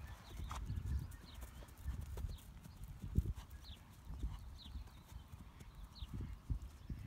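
A ridden horse walking on grass, its hooves falling in soft, irregular thuds on the turf.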